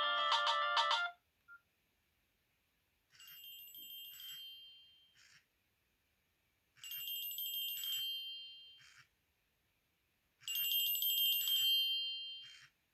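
Nokia N70 mobile phone's loudspeaker playing ringtones: a many-note polyphonic tune cuts off about a second in, then a high ringing phone tone sounds three times, each ring about two seconds long and about three and a half seconds apart.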